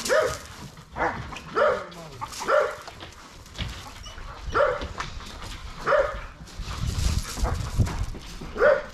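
A dog barking in single short barks, about seven of them spaced irregularly a second or more apart.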